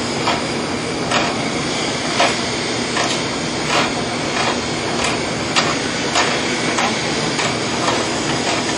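Sharp knocks repeating irregularly about one to two times a second as a stuck part of a screw press is worked loose by hand, one that is wanting lubrication, over steady noise.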